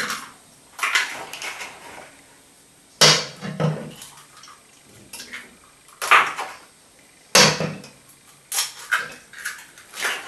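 Kitchen handling sounds at a stainless steel mixing bowl with a whisk in it: several separate sharp knocks and clinks a second or two apart, with a quicker run of them near the end.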